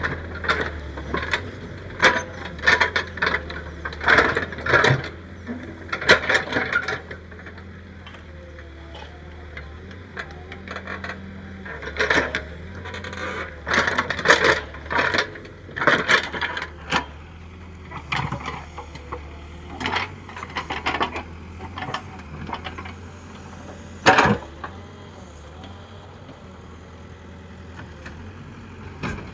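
JCB earthmoving machine's diesel engine running with a steady low hum, under irregular sharp clanks and knocks from the machine working the soil.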